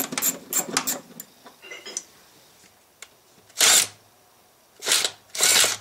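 A cordless power tool makes three short whirring runs in the second half, backing out a 10 mm fastener at the firewall. Before that come several sharp metallic clicks as the tool and socket are fitted onto it.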